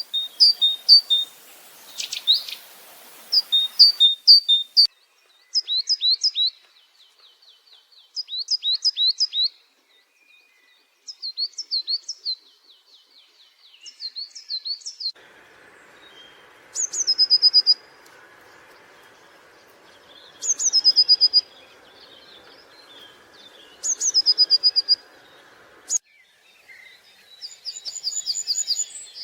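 Wild songbirds singing: quick series of sharp, high chirps and trills, with the later phrases coming back every three to four seconds as a run of rapid falling notes. About halfway through, a steady low rushing noise starts under the song and stops abruptly near the end.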